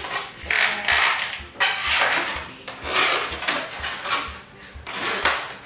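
Latex modelling balloons rubbing and squeaking against each other as they are twisted and bent by hand, in several loud scrubbing bursts.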